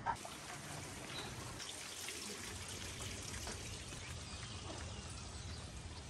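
Faint, steady hiss and trickle of light rain falling.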